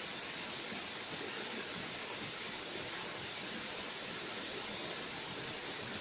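Steady rush of a small waterfall, thin streams of water splashing down a rock face.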